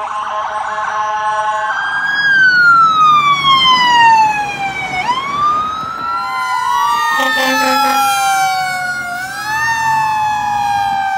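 Emergency vehicle sirens: a fast pulsing siren for the first couple of seconds, then a long wail that falls, rises and falls again, with a second wailing siren overlapping in the second half. A horn sounds briefly about seven seconds in.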